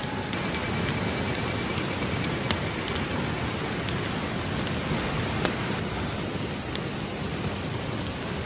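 Wood campfire burning: a steady hiss of flames with frequent sharp crackles and pops.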